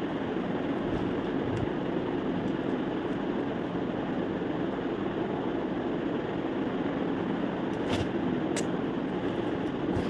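Steady rushing background noise, with two faint clicks about eight seconds in.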